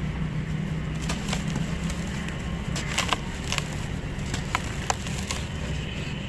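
Lumps of dry cement crumbling and crunching in bare hands over a plastic tub: a gritty rustle broken by scattered sharp crackles, a cluster of them about three seconds in. A steady low hum runs underneath.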